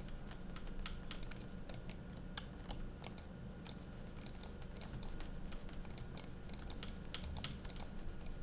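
Computer keyboard clicking irregularly in short runs of light key taps, over a low steady hum.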